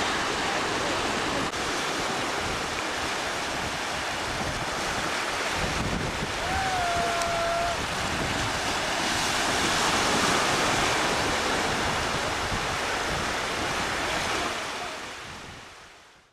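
Sea surf washing onto a beach, a steady rushing wash, with wind buffeting the microphone. A single short tone is heard about halfway through, and the sound fades out near the end.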